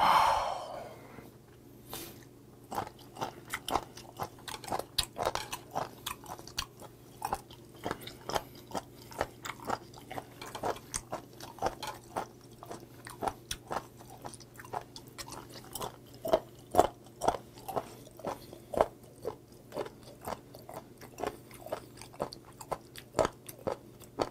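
Close-up chewing of raw candle whelk slices, firm and crunchy, with irregular bites and crunches several times a second. A short loud breathy sound comes right at the start.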